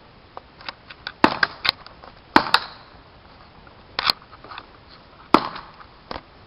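Paintball markers firing reballs in an irregular exchange: a scattered series of sharp pops, about a dozen, with four louder shots spread through.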